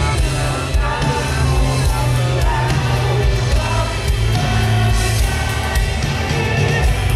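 Live rock band playing loud through a concert PA: a man singing lead over electric guitar, keyboard and drums.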